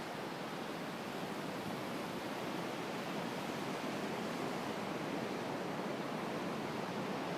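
Steady, even rushing of sea surf and wind on an open beach, growing slightly louder.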